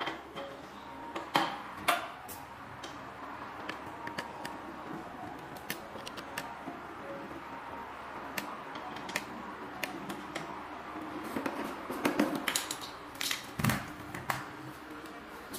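Scattered clicks and knocks of hands handling a welding wire feeder as parts of its feed-roller assembly are fitted. Near the end, a cluster of louder knocks and a low thump as the spool of welding wire is lifted and set on its spindle.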